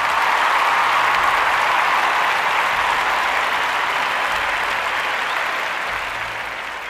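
Crowd applause: dense, steady clapping that slowly fades toward the end.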